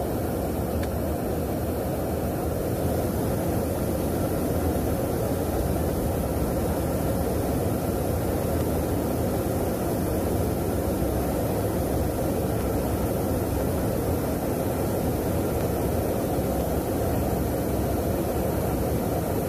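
Deep, steady rushing noise of a refuelling tanker's engines and slipstream in flight, heard from aboard the tanker.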